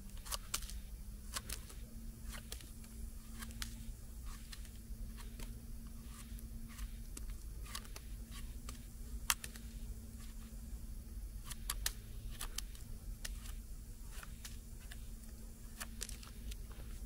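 Pocket knife scraping and cutting into the flesh of an orange birch bolete, making a run of small, irregular scratches and clicks.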